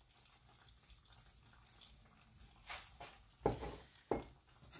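Lemon juice trickling faintly from a small glass into a steel saucepan of cooked rice, then a few short knocks in the second half, the loudest about three and a half seconds in.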